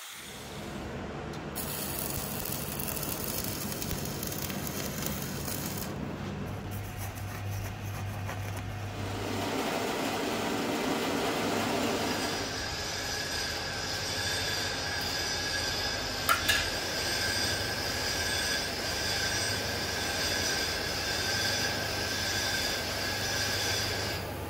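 Metalworking machinery running steadily, its sound changing abruptly a few times, with a steady high whine through the second half and one sharp click midway.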